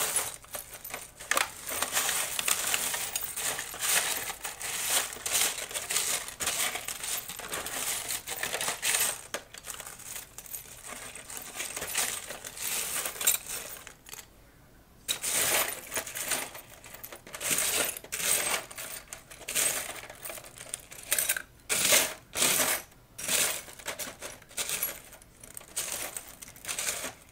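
Loose steel screws, nuts and small metal parts clinking and rattling as a hand stirs through them in a metal tray, searching for M5 screws. The rattling comes in irregular spells with a short pause about halfway through.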